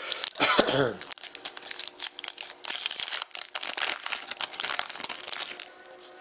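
A trading card pack's foil wrapper being torn open, with a short rip falling in pitch in the first second. Several seconds of loud crinkling follow and stop shortly before the end.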